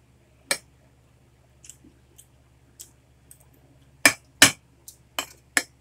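Metal spoons and forks clinking and knocking against dinner plates: one sharp clink about half a second in, then a quick run of four louder clinks near the end, with a few faint ticks between.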